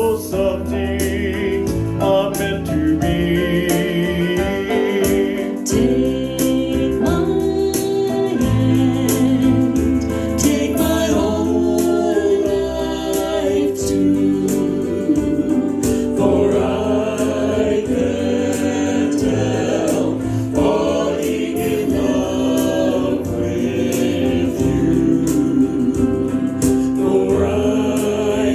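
A band playing with a choir of voices singing, in a gospel style.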